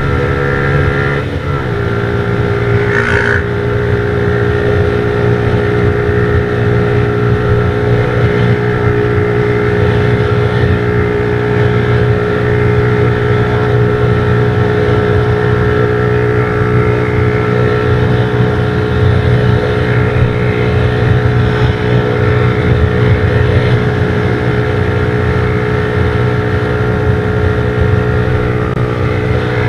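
A 150 cc motorcycle engine running at a steady cruising speed, with wind noise over it. The engine note dips briefly about a second in, then holds steady.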